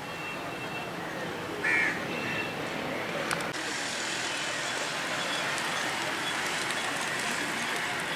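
Steady outdoor background noise, likely distant traffic, with a bird giving two short calls about two seconds in.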